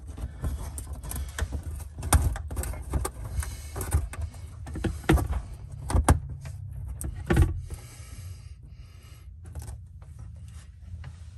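Plastic compression fitting on a water line being screwed by hand onto the back of an RV city water inlet: irregular clicking, creaking and rubbing of plastic parts, with a few sharper clicks.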